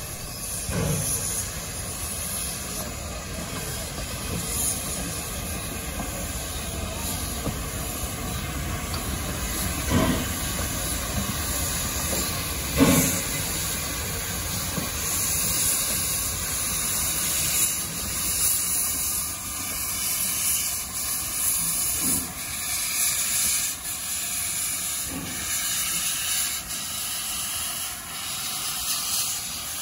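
Steam hissing steadily from two Victorian-era steam locomotives, with two sharp knocks about ten and thirteen seconds in.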